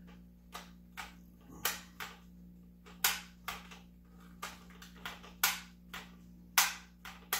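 Battery-powered light-up toy gun being fired over and over: a string of sharp shot sounds at uneven intervals, a few much louder than the rest.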